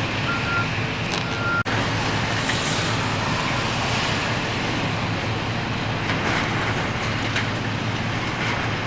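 Heavy diesel demolition machinery running steadily, with two short back-up alarm beeps in the first two seconds. The sound cuts out for an instant just after the second beep.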